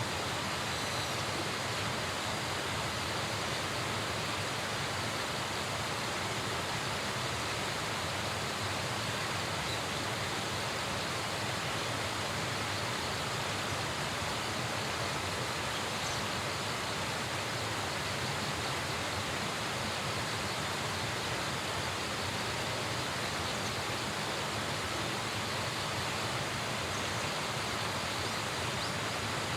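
Steady rushing of a river or stream, an even, unbroken water noise with no change.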